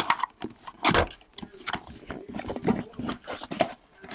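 A sealed box of hockey trading cards being opened by hand: plastic wrap and cardboard crinkling and tearing, in a run of irregular crackles and sharp clicks.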